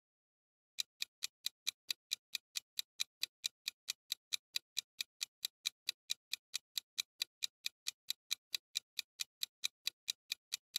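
Clock-ticking sound effect for a countdown timer: quick, even ticks about five a second, starting about a second in after near silence.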